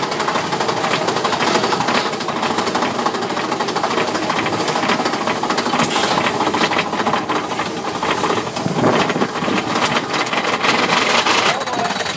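Mine-train roller coaster cars running along the track: a loud, continuous rattling clatter of the wheels on the rails.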